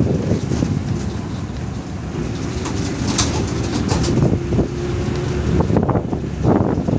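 Wind buffeting the microphone over the road noise of a moving vehicle, uneven and gusty, with a faint steady hum through the middle.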